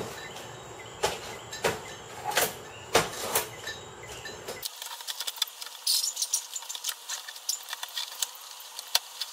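Scissors cutting a paper shipping wrapper: a few separate crisp snips, then from about five seconds in a dense run of paper crinkling and rustling.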